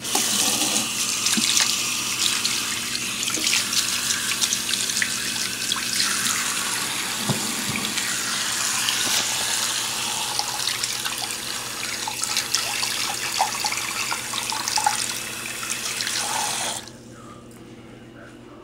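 Water running from a tap into a sink, with small splashes; it starts suddenly and is turned off about 17 seconds in.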